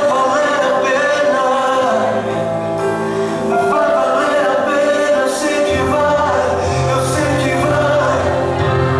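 A gospel song with singing, played loud; a deep bass line comes in about six seconds in.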